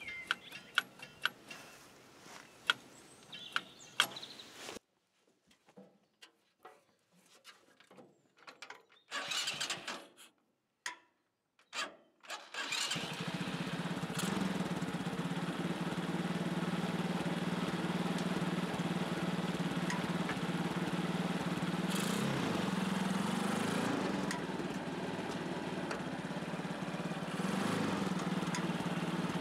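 A few sharp clicks of the tractor's throttle linkage being worked by hand. About thirteen seconds in, the swapped-in motorcycle engine starts and runs steadily, its speed easing and picking up a little as the gas pedal is worked.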